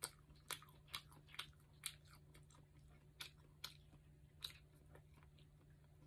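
Close-up chewing of a firm homemade chicken meatball: soft, sharp mouth clicks about twice a second, thinning out and stopping about four and a half seconds in.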